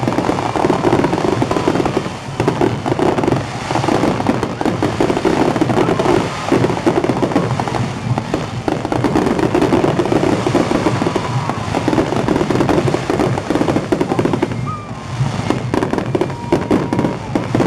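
Aerial fireworks shells bursting in rapid succession, an almost continuous barrage of bangs and crackling that eases briefly near the end.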